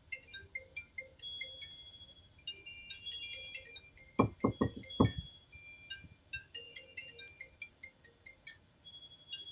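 High, short ringing tones at several different pitches, scattered through the whole stretch, and a quick run of four dull knocks a little over four seconds in.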